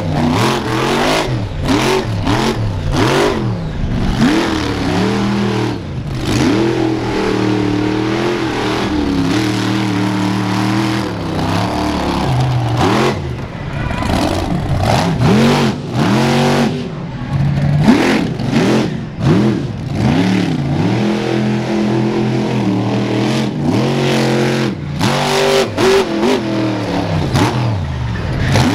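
Avenger monster truck's engine revving hard in repeated swells, its pitch rising and falling over and over, with a few stretches held at steady high revs.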